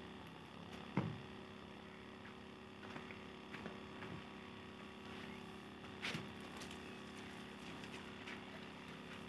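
Faint knocks and handling noises as a person moves about and takes up a garden hose. The sharpest knock comes about a second in, another around six seconds, with small ticks between.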